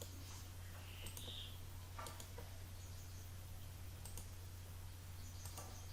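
A few faint, irregularly spaced computer mouse clicks over a steady low electrical hum.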